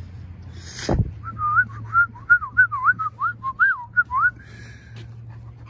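A person whistling a short warbling run of about ten quick notes that swoop up and down in pitch, after a brief thud about a second in.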